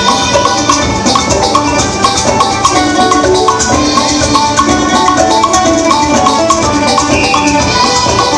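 Lively Filipino Christmas carol music with a busy melody of short notes over a fast, steady rattling percussion beat.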